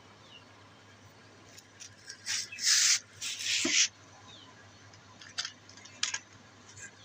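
Two loud bursts of scraping noise about two seconds in, followed by a few short clicks.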